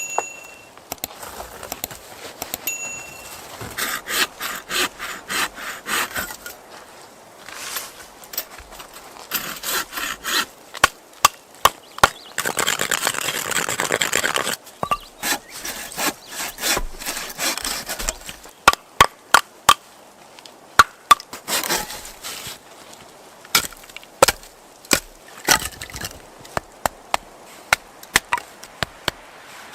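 Wood being worked by hand: a run of sharp knocks and cracks, with quick repeated rasping strokes and, about halfway through, a denser rasping stretch lasting a couple of seconds.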